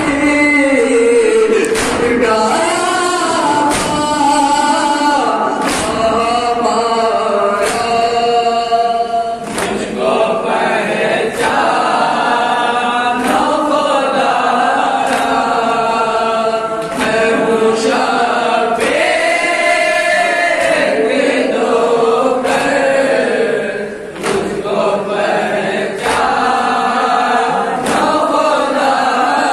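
Urdu noha sung without instruments: a lead reciter's voice over a microphone, with a group of young men chanting along in unison. Sharp slaps of chest-beating (matam) fall in time with the chant about every two seconds.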